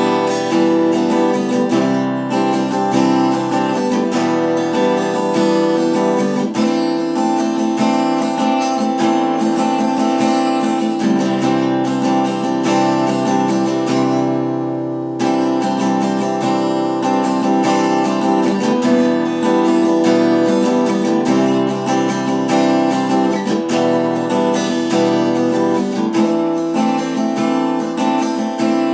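Acoustic guitar in EADGBD tuning (high E string dropped to D), strummed in a steady rhythm; about halfway through, one chord is left to ring for a moment before the strumming picks up again.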